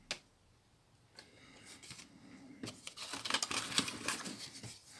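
Plastic back cover and body of a Prestigio Wize NX3 smartphone being handled: a click right at the start, then from about the middle a scratchy clatter of plastic parts rubbing and clicking against each other, busier toward the end.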